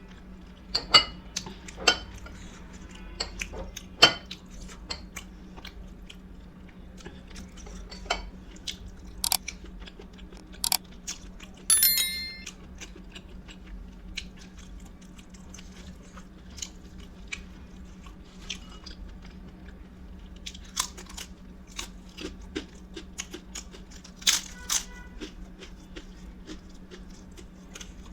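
Close-up eating sounds: biting and chewing with sharp, irregular crunches of crisp chips and food. A short ringing clink of a dish or utensil about 12 seconds in, and another near the end, over a steady low hum.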